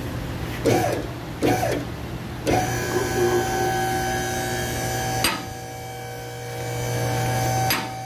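Car lift's electric hydraulic pump motor starting about two and a half seconds in and running with a steady whine as it raises the car. Two sharp clicks sound while it runs.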